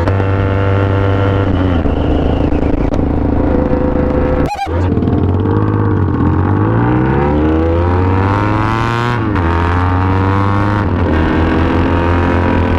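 Motorcycle engine running under way. Its pitch falls, then climbs steadily as the bike accelerates, and the sound cuts out briefly a little over four seconds in.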